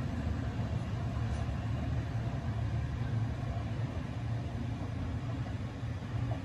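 Sydney Trains Waratah electric suburban train running away along the line, a steady low rumble that fades slightly as it recedes.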